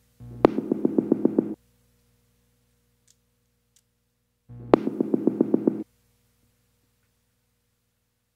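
Background music: a short riff of about a second and a half with a quick, even pulse, heard twice with silence between.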